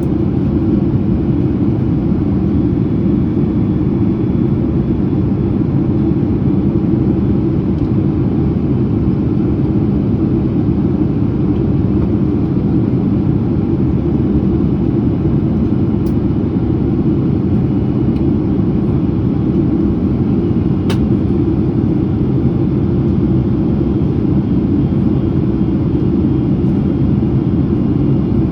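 Cabin noise inside a Boeing 767-300ER in descent: a steady low rumble of engines and airflow heard through the fuselage. There is one faint click about twenty seconds in.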